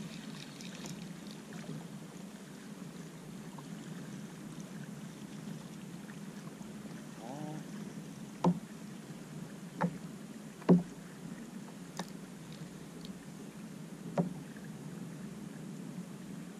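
Water lapping steadily against a plastic sit-on-top kayak hull on calm sea. About halfway through come four short sharp knocks, the third the loudest.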